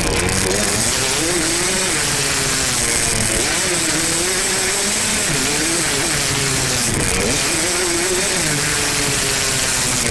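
Yamaha YZ two-stroke dirt bike engine under way, its pitch rising and falling again and again as the throttle opens and closes, over a steady rush of wind noise.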